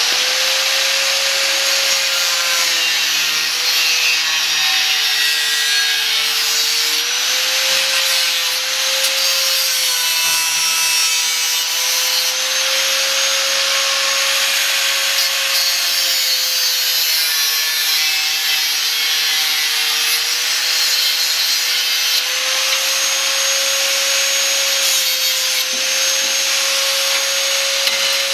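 Electric angle grinder running continuously, its disc grinding a steel strip. The motor's steady whine sags slightly in pitch a few times as the disc is pressed into the metal.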